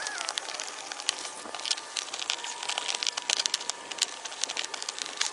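Irregular small clicks and crackles of hands working an old plastic RV side marker light, lens and bulb socket, out of its housing in the trailer's aluminium siding.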